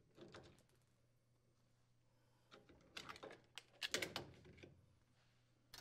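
Near silence, with a few faint clicks and taps about three to four and a half seconds in, as a refrigerator's wire connector support bracket is freed and lifted away by hand. A faint low hum sits underneath.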